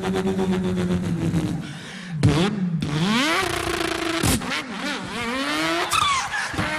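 Beatboxer's voice imitating a car engine: a fluttering idle-like rumble, then revs that rise in pitch several times, each breaking off and climbing again.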